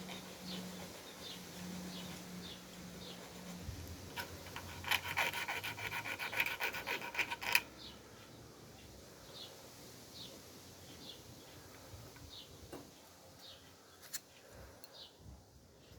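Quick back-and-forth abrasive rubbing strokes, loudest for about three seconds in the middle, over a low hum that stops about three and a half seconds in. A faint high chirp repeats about once a second.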